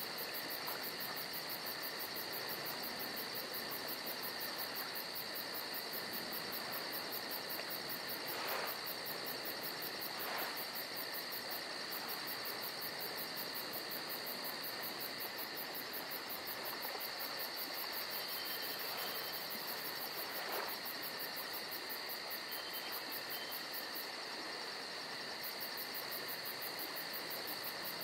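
Steady insect chorus: a continuous high shrill with a faster, very high pulsing trill above it. Three brief faint clicks break through it.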